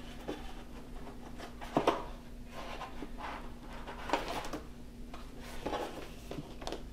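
Paper colour-chart sheets being lifted and handled in a plastic storage bin: a series of soft paper rustles and light knocks.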